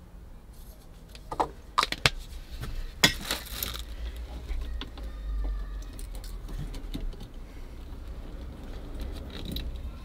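Light metallic clicks and rattles of wiring connectors and tools being handled, with a few sharp clicks between one and two seconds in and a short noisy burst about three seconds in.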